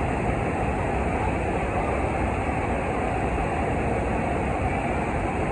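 Steady rushing of the FlowRider sheet-wave machine's pumped water pouring up and over the ride surface, a constant roar with a deep rumble underneath.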